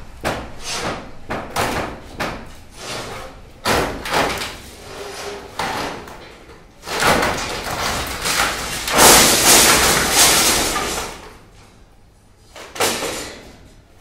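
Wooden shuttering being knocked and pried off the underside of a cast concrete slab with a hammer and bar: a quick run of sharp wooden knocks, then about halfway through a long, loud stretch of clattering and scraping as the boards work loose, and one more knock near the end.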